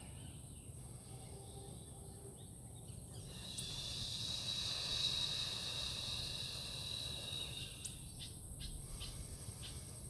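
Outdoor forest ambience: an insect buzzing steadily at a high pitch, starting about three seconds in and fading after about four seconds. Beneath it is a constant low rumble, and a few faint clicks come near the end.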